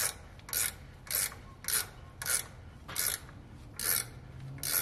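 Ratchet wrench working the nut down on a semi-truck spring brake chamber's caging bolt: a short rasp of the ratchet on each stroke, about eight strokes, a little under two a second. Tightening the caging bolt manually compresses the parking-brake spring.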